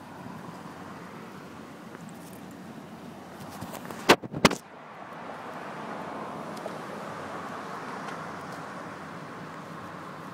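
Steady vehicle noise, as from an idling car, broken about four seconds in by two sharp, loud knocks under half a second apart.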